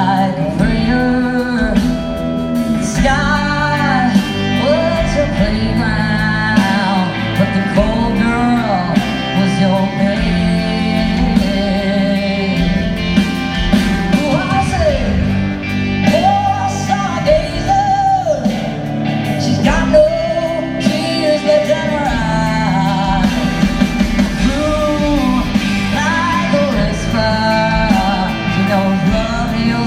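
Live rock band playing a slow rock song: a female lead vocal over electric guitars, bass and drums.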